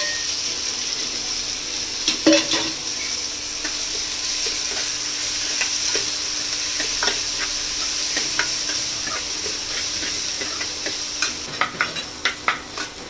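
Sliced onions sizzling steadily in oil in a steel pan while being fried to brown. A metal spoon scrapes and knocks against the pan as they are stirred, with a clatter about two seconds in and a quick run of knocks near the end.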